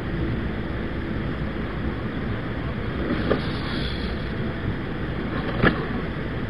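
Steady rushing background noise while a 1/24-scale Axial SCX24 rock crawler works over creek-bed rocks, with a light click about three seconds in and a sharp knock near the end as the little truck strikes rock.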